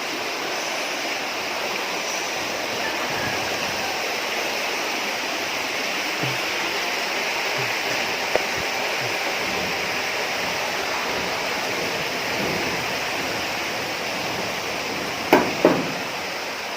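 River water rushing steadily. Two brief sharp sounds break through near the end.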